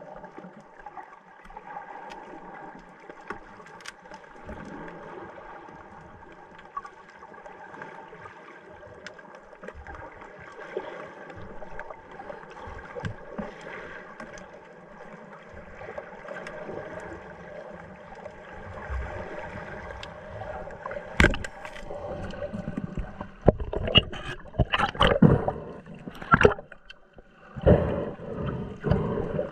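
Muffled underwater ambience through an action camera's waterproof housing, a steady hiss and gurgle. About two-thirds through comes a single sharp crack, the speargun firing, then a run of loud knocks and clatter as the spear shaft and its line strike the rocks with a mullet on it.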